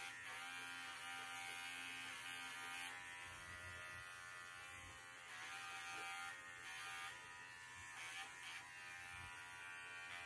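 Cordless Arco pet clipper buzzing steadily as it clips a standard poodle's coat.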